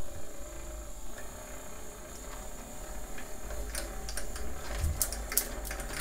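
Small electric motor in a Discovery Kids Tornado Lab toy running with a low steady hum as it spins the water column into a vortex, with a scatter of light clicks from about halfway on.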